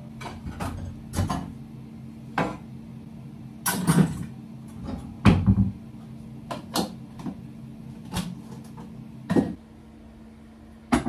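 Kitchen cupboard doors opening and closing while crockery and other items are handled and set down: a string of sharp knocks and clunks, the loudest about four and five seconds in. A steady low hum lies under them until near the end.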